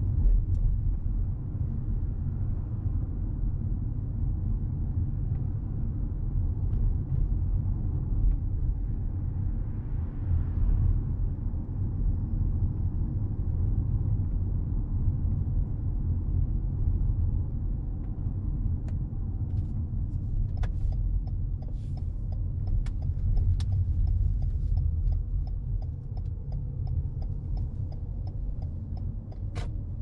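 Road and tyre noise with a low rumble inside the cabin of a moving Toyota Crown Athlete hybrid. About two-thirds of the way through, an even ticking starts, about two or three ticks a second.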